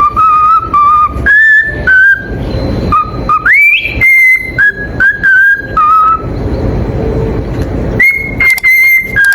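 A bird, such as a pet parrot, whistling a run of clear notes. Most notes are held, one glides upward about three and a half seconds in, and there is a pause of about a second and a half before a last few notes. A rough background noise runs beneath.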